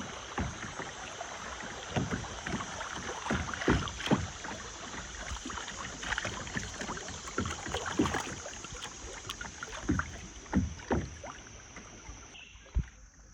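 Water rushing and splashing around a kayak on a fast stretch of river, with irregular splashes and knocks from paddle strokes. It grows quieter about twelve seconds in.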